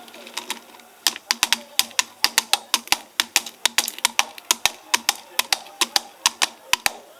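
A hand-worked sound-effects prop giving a rapid run of sharp clicks, about five a second, starting about a second in.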